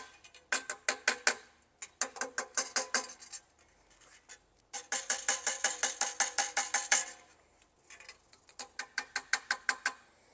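Quick, evenly spaced metal taps, about eight a second, on a collapsed brass trombone slide tube with a precision dent rod inside, working the dents out. Each tap sets the tube ringing. The taps come in several bursts of one to two seconds with short pauses between.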